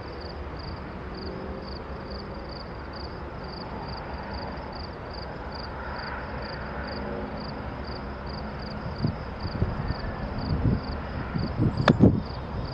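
Distant Norfolk Southern diesel locomotives approaching, a faint low drone under insects chirping in a steady pulse. In the last few seconds come several dull thumps and one sharp click.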